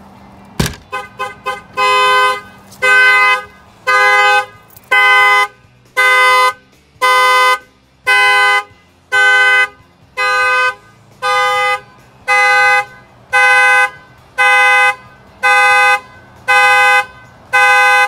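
A sharp knock on the car's door glass, then the 1965 Ford Falcon's horn gives a few quick short toots and settles into steady honks about once a second. The aftermarket Excalibur alarm has been tripped by its shock sensor and is sounding the horn.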